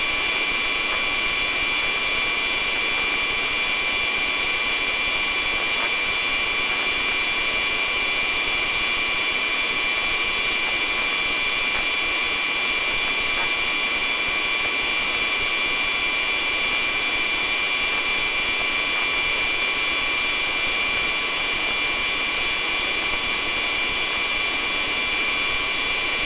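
Steady turbine and cabin noise of a police helicopter, an even rushing hiss with several high, constant whining tones that do not change.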